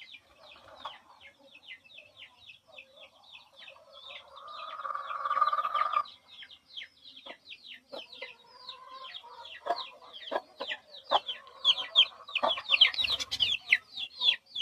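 Small birds chirping in a rapid stream of short, falling chirps, about four or five a second. A louder, lower call joins about four to six seconds in, and the chirping grows louder near the end, mixed with a few sharp clicks.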